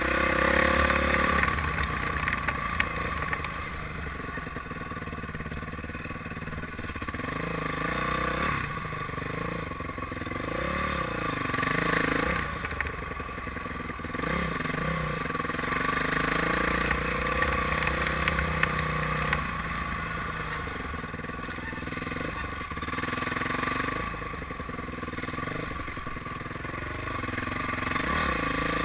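Honda dirt bike engine running on a trail ride, its note rising and falling over and over with the throttle.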